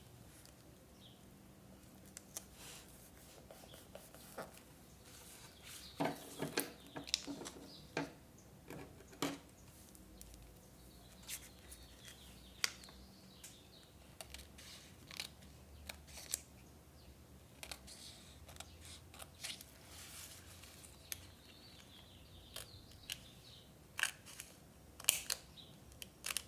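Scissors snipping through paper in short irregular cuts, with paper being handled, the snips coming in a thick cluster about six to nine seconds in and again near the end.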